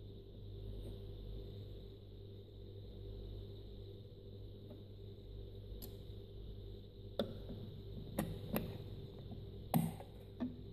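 Several light plastic clicks and taps of a sewing machine's clear bobbin cover being laid over the drop-in bobbin and snapped into the needle plate, the loudest click near the end. A steady low hum runs underneath.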